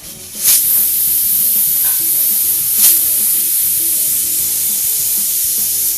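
Pressure cooker whistling: a loud, steady hiss of steam venting from the weight valve, starting abruptly about half a second in. It is the sign that the cooker has come up to full pressure.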